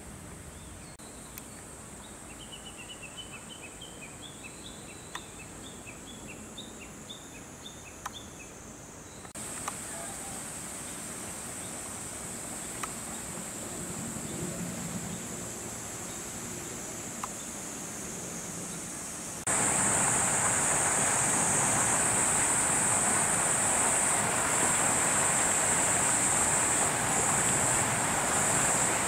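Summer outdoor ambience: insects droning steadily at a high pitch, with a quick run of short high chirps over the first several seconds. The background steps up in loudness twice, and in the last third a louder rushing noise joins the insect drone.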